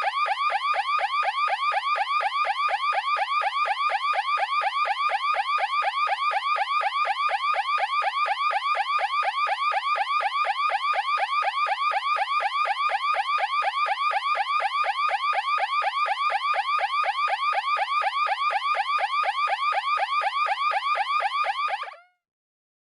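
Anti-theft alarm siren sounding a fast, unbroken run of short rising whoops, several a second, until it cuts off suddenly near the end.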